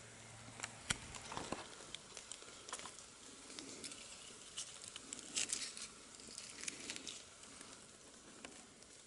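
Fallen leaves rustling and crackling as a hand moves among them, in irregular soft clicks and taps with a sharper click about a second in and a dense cluster about halfway through.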